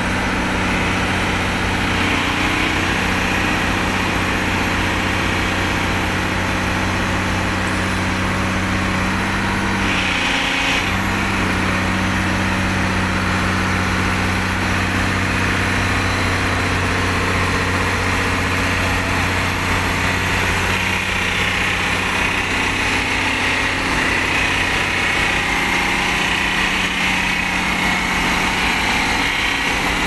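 Diesel engine of a worn JCB JS200SC crawler excavator running steadily under load as the machine climbs onto a lowbed trailer, with a growling hydraulic pump. The engine note dips briefly about ten seconds in.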